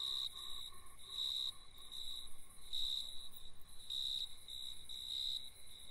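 Crickets chirping: a high-pitched trill in short, uneven pulses repeating throughout.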